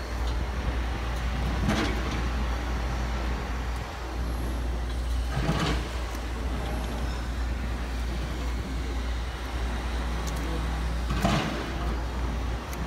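A truck engine running steadily with a low rumble. Three short scrapes of a hand trowel on the wet concrete come over it.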